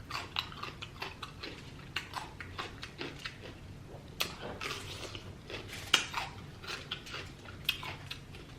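Close-miked eating sounds: wet chewing and mouth smacking over sauced lobster tail, with many irregular crackles and clicks, a sharper one about six seconds in.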